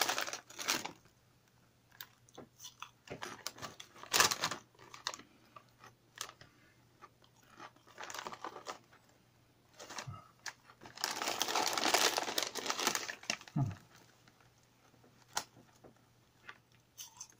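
Hand-cooked potato crisps being crunched and chewed in irregular bites, with the crisp bag rustling and crinkling, in a longer stretch about eleven seconds in.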